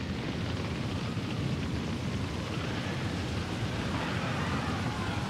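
Steady rumbling noise of a huge blaze, an animation sound effect of a spreading fire, with faint wavering tones joining in about four seconds in.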